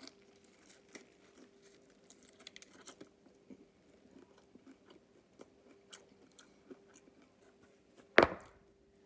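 A person chewing and crunching on crispy fried chicken close to the microphone, with many small crunches and mouth sounds. About eight seconds in there is one loud, sudden thump.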